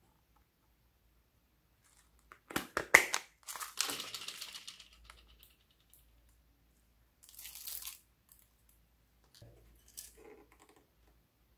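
Slime being squished and pulled by hand, making crackling, popping noises in a few short bursts.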